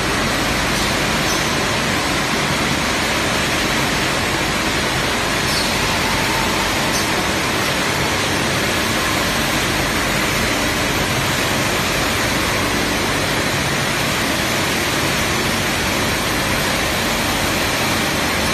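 Stainless-steel tube mills running: a steady, even machine din from the motors and roll stands of the production line.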